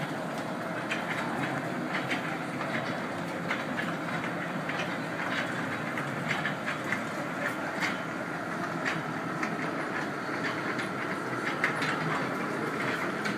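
Small funfair ride train running along its track, its wheels clicking irregularly over the rail joints over a steady rumble, with a faint steady whine.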